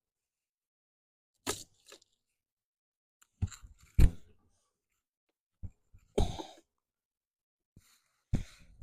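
A handful of separate knocks and clicks, the loudest about four seconds in, with a short rustle a little after six seconds: hive boxes, frames and newspaper being handled during a beehive inspection.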